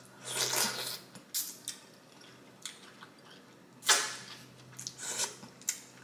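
Close-miked wet eating sounds of sauce-coated mussels being sucked off the fingers and chewed: a sucking slurp near the start, then scattered short wet smacks and clicks, the loudest about four seconds in.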